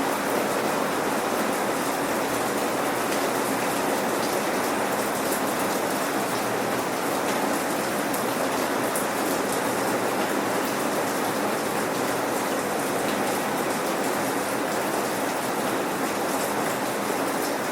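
Steady rain falling without thunder: an even hiss of rain with the patter of individual drops on a surface.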